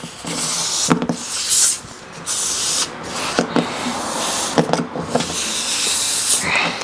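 Air hissing out of a punctured car tyre around a screw as the screw is worked out with multi-tool pliers. The hiss comes in several spurts with brief breaks, and there are a few sharp metal clicks from the pliers on the screw.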